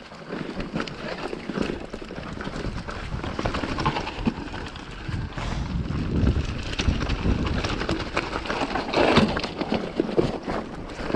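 Mountain bike descending a rough trail of loose rock: tyres crunching and skidding over stones while the bike rattles with every hit, under a rush of wind on the microphone. A harder run of knocks comes about nine seconds in.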